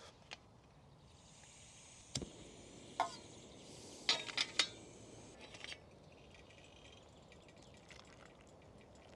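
Metal camping cookware clinking and knocking as a pot and its parts are handled at a small gas stove: a few separate sharp clinks, with a quick cluster about four seconds in.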